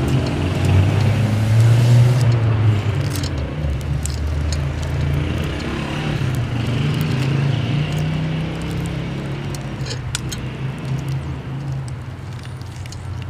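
Boiled eggshells cracking and being picked off by hand, making small scattered clicks, over a loud, steady low hum.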